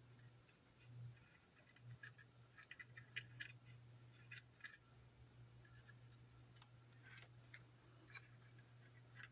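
Faint scattered clicks and light taps of small plastic model parts being handled and fitted, over a steady low hum.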